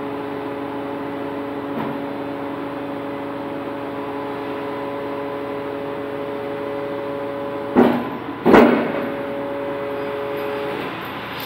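Electric overhead crane hoist running with a steady hum that cuts off near the end. About eight seconds in, the steel test-weight frames on its chains clank loudly twice, less than a second apart.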